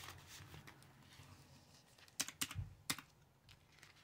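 Faint handling of paper cash envelopes in a budget binder: soft rustling, with three or four sharp clicks in the second half.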